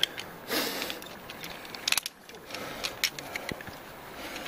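Loose scattered clicks and clinks, like metal climbing gear knocking together, with gravel scuffing underfoot on a rocky slope. A cluster of sharper clicks comes about two seconds in.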